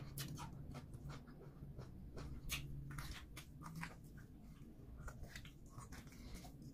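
Chewing and wet mouth sounds of eating starch and egusi soup by hand: irregular soft clicks and lip smacks, over a low steady hum.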